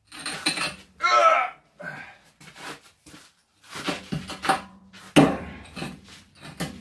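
A heavy welded-steel anvil stand with sand-filled legs being wrestled upright: scrapes and knocks, a man's strained groan about a second in, and one loud knock a little after five seconds in.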